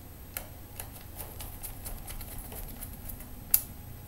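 Small screws being driven back into a laptop's drive bay with a Phillips screwdriver: light, irregular metallic clicks and ticks, with one sharper click about three and a half seconds in.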